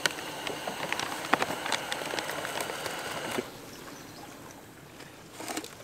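Portable APG canister gas stove's burner hissing steadily, cut off abruptly about three and a half seconds in as the stove is turned off. A few light clicks and taps sound over the hiss.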